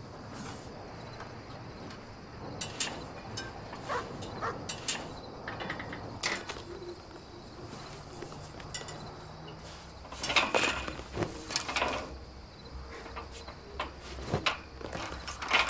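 Scattered knocks, creaks and rustles of a person climbing over a metal railing fence, loudest about two-thirds of the way through and again at the very end, over a faint steady chirring of crickets.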